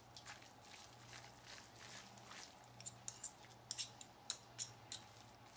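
A fork shredding braised pork shoulder: soft wet squishing with a scatter of light clicks, thickest about three and a half to five seconds in.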